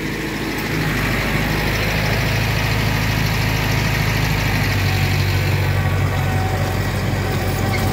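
Mahindra 555 DI Power Plus tractor's diesel engine running steadily under load, driving an 8-foot Sonalika rotavator whose blades churn through the soil.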